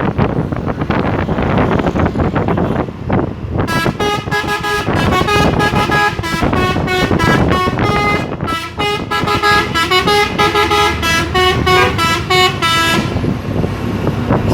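A Hino truck's three-trumpet telolet horn plays a tune of quick stepping notes over the noise of the truck on the road. The tune starts about four seconds in and stops about a second before the end.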